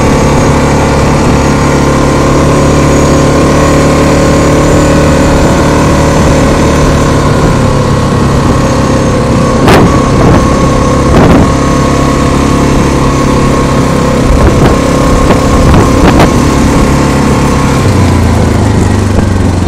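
Yamaha Grizzly 660 ATV's single-cylinder four-stroke engine running steadily under way, with sharp knocks and rattles from bumps about halfway through and again a few seconds later. The engine note drops near the end.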